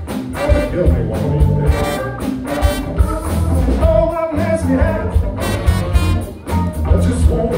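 Live rock band with a horn section playing: electric guitar, drums and bass under trumpet and saxophone, with a lead singer, over a steady driving beat.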